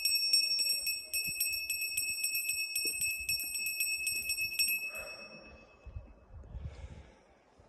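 Small hand bell shaken rapidly, its clapper striking many times a second over one high ringing tone. The ringing stops just before five seconds in and dies away briefly.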